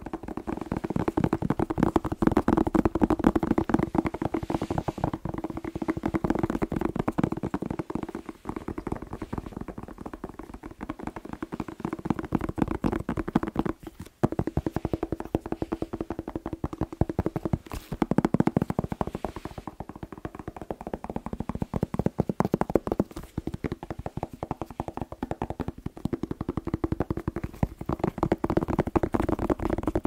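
Fingertips tapping rapidly on the skin of a whole red bell pepper held right against a microphone: a dense, fast run of soft knocks with a steady low ring beneath them, pausing briefly about halfway through.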